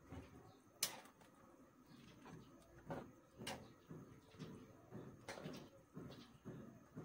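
Faint, irregular soft taps roughly every half second, with a few sharper clicks, as pieces of fried tofu are dropped by hand into a pan of lomi noodle soup.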